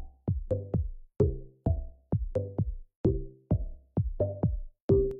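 Background music: an electronic beat of sharp hits, each with a short pitched ring, in a steady rhythm of about two to three a second.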